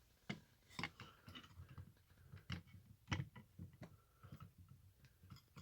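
Irregular light clicks and taps of split rock pieces and shattered fragments of a fossil concretion being handled and knocked together.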